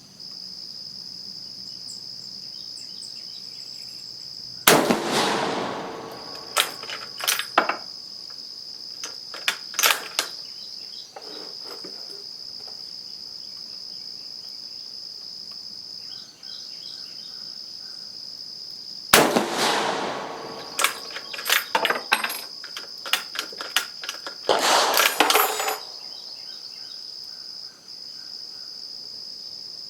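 Two rifle shots from a Carcano M38 bolt-action short rifle in 7.35mm, about 15 seconds apart, each followed by a few seconds of metallic clicking and clatter as the bolt is worked. A steady high insect drone runs underneath throughout.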